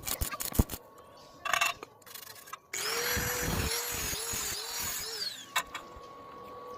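A small power tool's motor runs with a wavering whine for about three seconds, after a few clicks and knocks.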